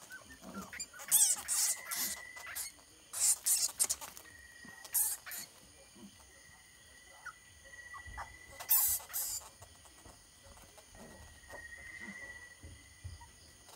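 Dog and cornered bat scuffling among rocks and leaves: several short, harsh, high-pitched bursts, about 1, 3, 5 and 9 seconds in, over a faint thin high tone that comes and goes.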